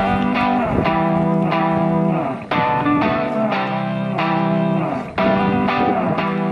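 Background music: an instrumental phrase that repeats.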